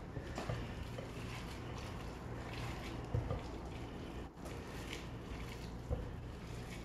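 Gloved hands squishing and kneading raw ground beef mixed with egg, onion and breadcrumbs in a glass bowl: a soft wet squelching, with a couple of light knocks and a steady low hum underneath.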